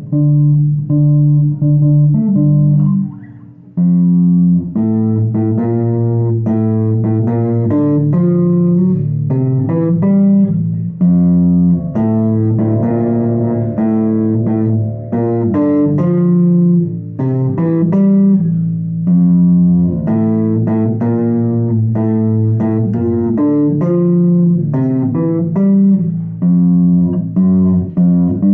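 Fodera six-string electric bass guitar playing a bass line of separate plucked notes, with a brief pause about three seconds in.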